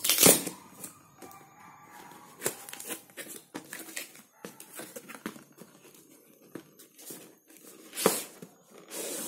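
Packing tape ripped off a cardboard shipping box in the first second, then cardboard flaps rustling and creasing as the carton is opened. Near the end there are two more loud scrapes as a boxed product is slid out of the cardboard.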